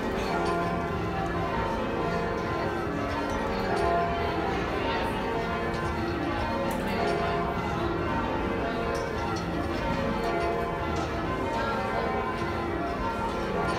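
A ring of ten church bells being lowered in peal, heard from the ringing chamber below. The bells strike one after another in rounds in quick, overlapping succession, with their ringing tones blending continuously.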